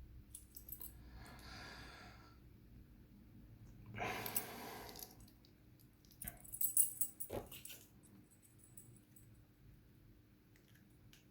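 Faint clicks and light metallic rattles of small lock parts being handled during reassembly of an Abus 83 lock cylinder, with a soft rustle about four seconds in and a cluster of sharper ticks a little after six seconds.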